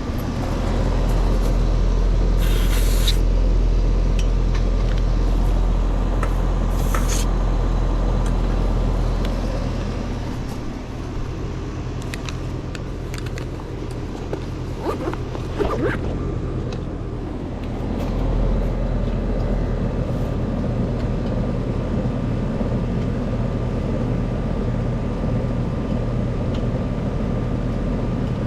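Outdoor air-conditioning condenser unit running with a steady low hum, its pressures checked as good. Two short hisses of refrigerant escape as the gauge hoses are disconnected, about three and seven seconds in, with a few clicks later.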